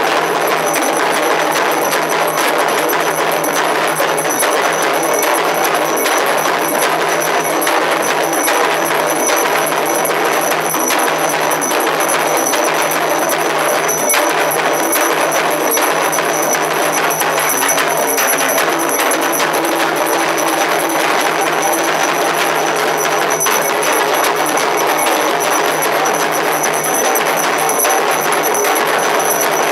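Loud, continuous drumming and percussion with dense, unbroken strokes: the ritual drumming of a Réunion Malbar (Tamil) ceremony for the outing of a god.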